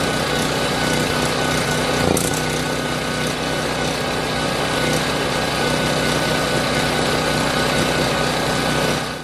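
Portable generator's engine running at a steady speed, then cutting off suddenly at the end.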